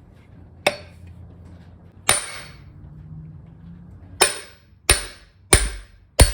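Hammer blows on a socket, driving the reverse clutch hub out of a Gravely G series riding tractor's 8-speed transmission case. There are six sharp metal-on-metal strikes, each with a short ring: two spaced well apart, then four in quicker succession about two-thirds of a second apart.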